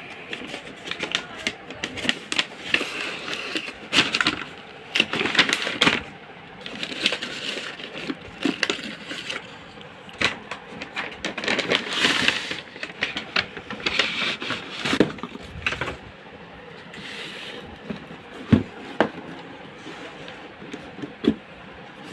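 Hands unpacking a new pair of shoes: packaging rustling and crinkling in irregular bursts, with clicks and light knocks, and a few separate knocks in the last few seconds.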